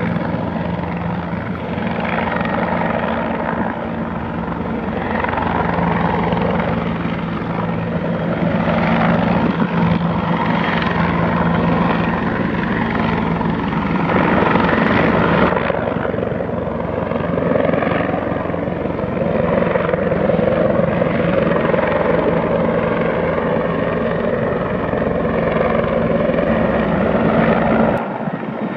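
Bell 412 four-bladed twin-engine helicopter flying past, with a steady rapid rotor beat and a steady low hum. The sound changes abruptly near the end.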